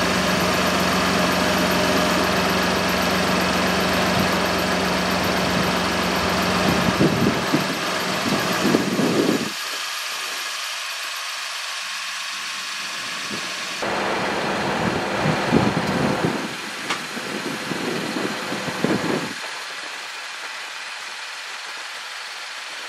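2018 Chevrolet Colorado pickup's engine running at idle as the truck is driven slowly forward. It runs steadily for about nine seconds, then drops away and comes back louder and uneven for a few seconds in the second half before settling lower again.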